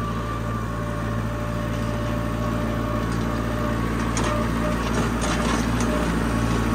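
Farm tractor engine running steadily, with light rattling and clicks from the machinery from about four seconds in.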